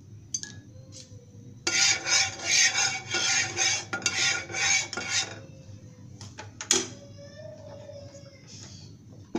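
A white plastic spatula scraping across a nonstick frying pan in quick back-and-forth strokes, about three a second, for roughly three and a half seconds, spreading a little oil over the pan. About two seconds after the strokes stop comes one sharp knock against the pan.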